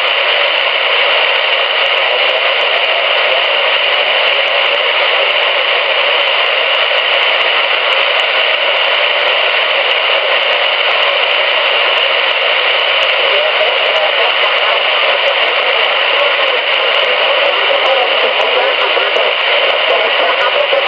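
Steady static hiss from a Magnum CB radio's speaker, tuned to 27.455 MHz on sideband with no strong station coming in. Near the end a faint, warbling sideband voice starts to come through the noise.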